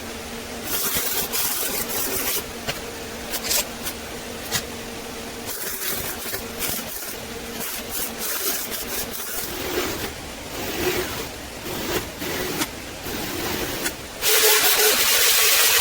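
Metalworking tool noise: a string of short hissing bursts and clicks over a steady hum, then a loud steady hiss that starts suddenly near the end.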